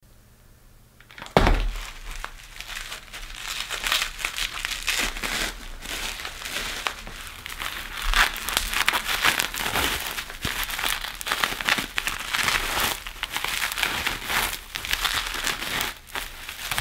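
Plastic bubble wrap crinkling and rustling with many small crackles as it is handled and unwrapped from a replacement phone screen, beginning with a sudden loud crackle about a second in.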